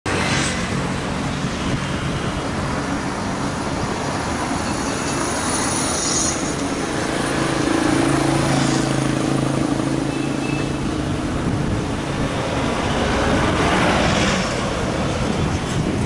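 Steady road-traffic noise, with a vehicle's engine hum swelling through the middle and fading.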